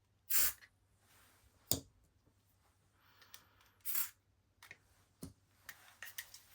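Aerosol lubricant sprayed into stiff padlocks in two short hissing bursts, with a sharp click and a few small knocks from the locks being handled in between.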